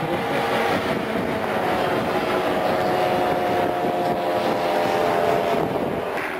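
Propeller engines of radio-controlled model biplanes in flight overhead: a steady engine drone that grows a little louder, then drops off near the end.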